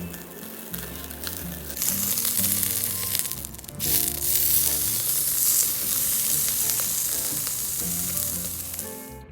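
Meat sizzling on a grill, a steady hiss that swells about two seconds in and cuts off sharply near the end, over background music.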